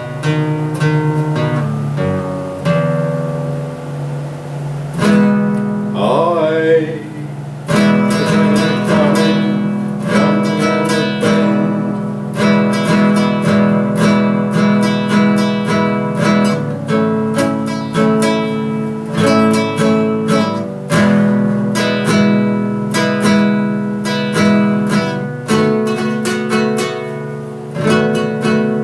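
Cheap charity-shop acoustic guitar strummed, a run of chords changing every second or two.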